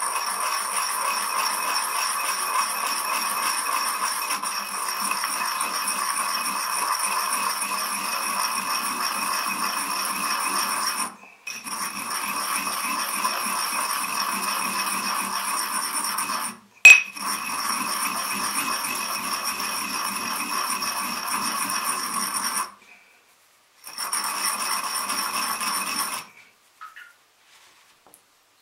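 Ceramic pestle grinding crushed eggshells in a ceramic mortar: a steady gritty scraping with a ringing, chinking edge. It breaks off briefly a few times, there is one sharp knock about two-thirds of the way in, and the grinding stops near the end.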